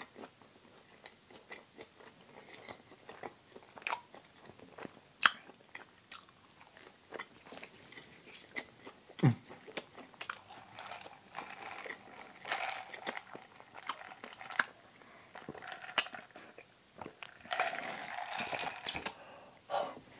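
A person chewing a mouthful of plant-based Beyond Burger on a soft bun with the mouth closed, picked up close by a lapel microphone: irregular soft wet smacks and mouth clicks, with a few sharper clicks scattered through.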